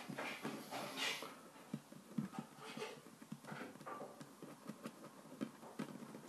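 Hands patting, pressing and smoothing play dough on a wooden tabletop: soft, irregular taps and knocks of fingers on the table, with some rubbing noise in the first second or so.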